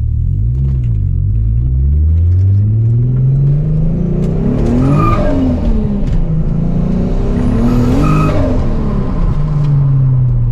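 Turbocharged VW VR6 engine accelerating hard twice, its pitch climbing to a peak and falling away each time, with a faint high whistle rising near the top of each pull.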